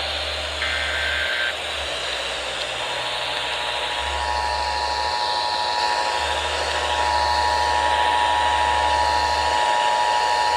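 Emergency Alert System tones over heavy radio static: a short burst of data tones about a second in, then the steady two-tone EAS attention signal from about three seconds in.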